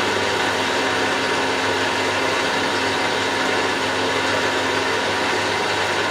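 A steady electric motor running in a machine shop: an even hiss with a constant hum, unchanging throughout.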